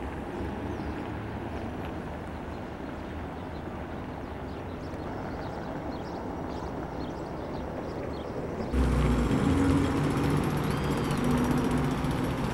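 Steady outdoor rumble with a few faint high chirps, then about nine seconds in a louder, steady motor-vehicle engine hum sets in suddenly.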